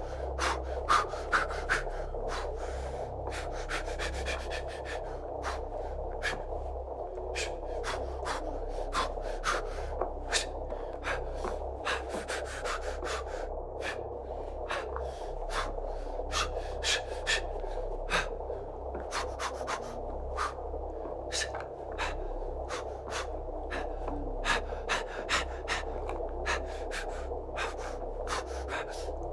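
A steady low droning ambience with many sharp, irregular clicks and crackles scattered over it.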